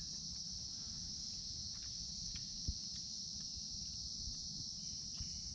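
Steady, high-pitched insect chorus in the forest, unbroken throughout, with a few faint taps and one slightly sharper tick about halfway through.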